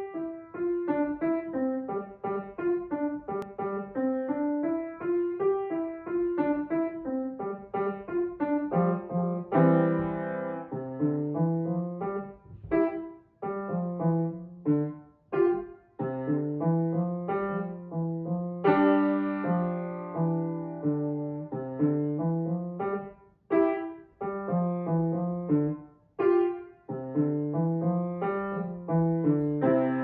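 Grand piano played solo by a young child: a melody over lower accompanying notes, in short phrases with brief breaks between some of them, beginning with a loud first note.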